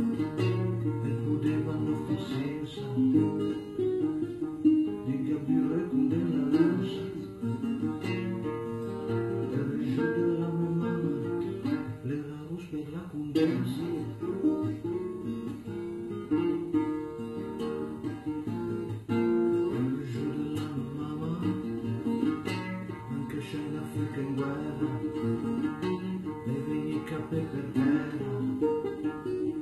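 Acoustic guitar in open D tuning played steadily, with a man singing a song in Milanese dialect over it.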